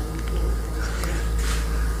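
A cat chewing and licking at pieces of fish: soft wet smacks and small clicks, with a longer soft rustle about a second in, over a steady low hum.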